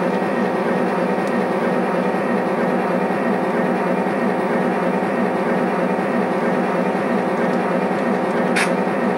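Model diesel locomotive and its cars running steadily along the layout track, with continuous motor and wheel noise. A brief sharp high click or squeak comes near the end.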